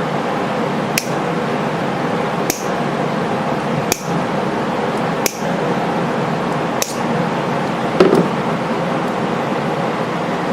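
Small metal parts of a slip joint pocket knife clicking and clinking as it is reassembled, over a steady hiss, with sharp clicks about every second and a half and a louder knock about eight seconds in.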